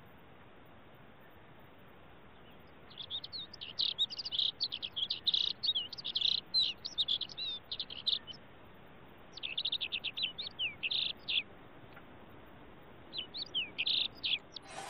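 A songbird singing three phrases of rapid, high chirping notes, the first beginning about three seconds in and the longest lasting some five seconds, with short gaps between them.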